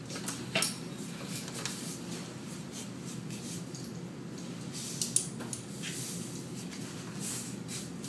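A person moving about a small room: faint rustling and shuffling with a few light knocks and clicks, the sharpest about five seconds in.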